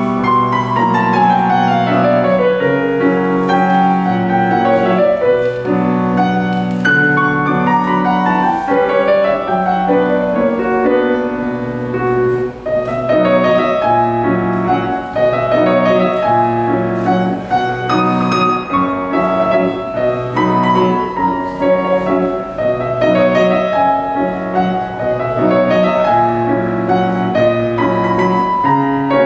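Solo grand piano playing on a Bösendorfer: a quick descending run in the first few seconds, then a continuous melody over sustained bass notes.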